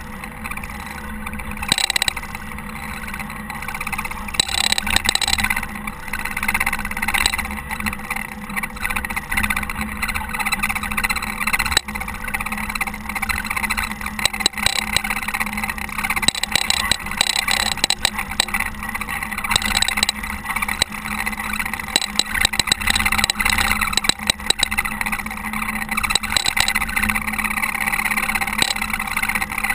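Caterpillar TH330B telehandler working at snowplowing, its engine running steadily with a constant scraping haze and many short knocks and rattles.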